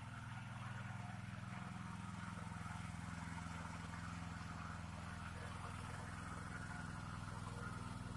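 Super MTZ walk-behind tractor's engine running steadily under load as it pulls a harrow through tilled soil.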